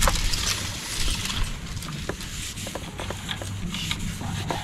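Towel rubbing and scuffing across a new cast-iron brake rotor, wiping off brake cleaner and the factory oil coating, with small clicks as the hand shifts on the metal.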